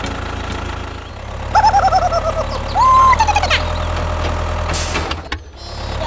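Steady low tractor engine drone. A run of quick, warbling high-pitched calls comes in about a second and a half in, then a longer call that rises and falls, and a short hiss near the end.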